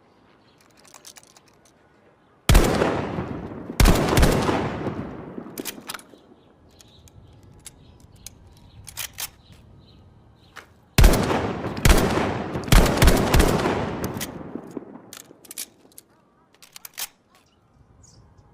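Remington Model 8 semi-automatic rifle firing: two shots about a second apart, then after a pause four more in quick succession. Each shot trails off in a long echo, and small sharp clicks sound between the volleys.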